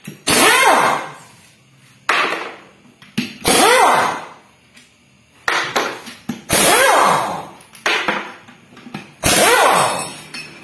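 Power wrench run in about six short bursts of roughly a second each, its pitch sweeping within each burst, while loosening the bolts of a Toyota Avanza manual transmission case for disassembly.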